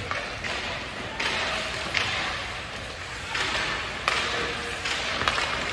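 Ice hockey play: skate blades scraping and hissing on the ice in repeated half-second to one-second strokes, with a few sharp knocks of sticks and puck.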